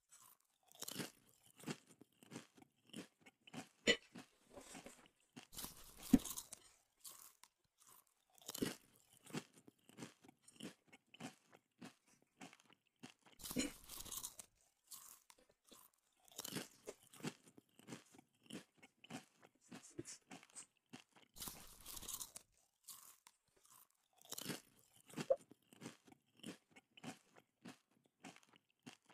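A person chewing and crunching chicken feet: irregular crunchy bites and chewing, with a couple of sharper, louder cracks a few seconds in.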